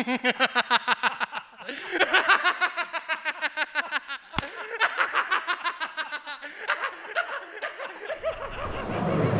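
People laughing hard, chiefly a man, in long runs of rapid 'ha-ha' pulses with a brief break between runs. A single sharp click sounds about four and a half seconds in, and near the end the laughter gives way to a rising low rumble.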